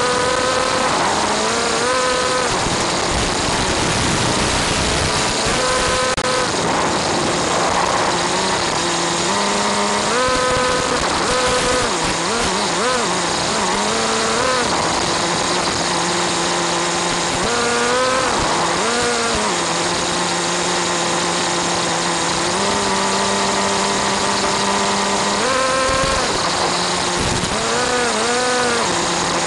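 Small two-stroke nitro RC car engine, revving up and falling back again and again, with stretches of steady running in between. A constant hiss of static from the wireless camera link runs underneath.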